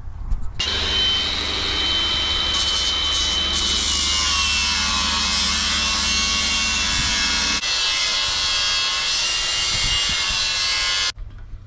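A forge being fired up: a loud, steady rush of air with a high whine that sags slightly in pitch. It starts abruptly and cuts off sharply near the end, and a low rumble under it drops away partway through.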